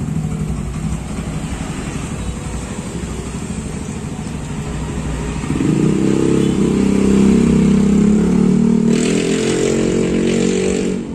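Yamaha Xeon GT scooter's single-cylinder engine running through an aftermarket Pro Liner exhaust: a steady low note, then about five or six seconds in it revs up louder as the scooter pulls away.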